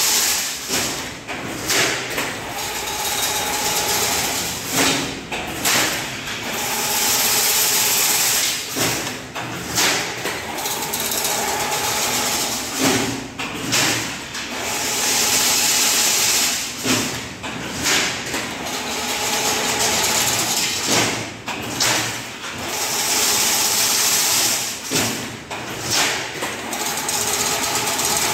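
Automatic chain link fence machine running as it weaves wire mesh: a steady mechanical hum with frequent knocks and a loud hiss that comes back about every eight seconds.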